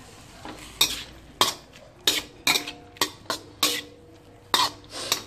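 Metal spatula clanking and scraping against a metal wok while shredded cabbage is stir-fried: sharp clanks from about a second in, a little under two a second, several ringing briefly.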